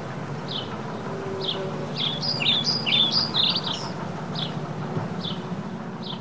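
A songbird chirping, short falling chirps about once a second, with a louder flurry of varied twittering about two to three and a half seconds in. A steady low rumble runs beneath.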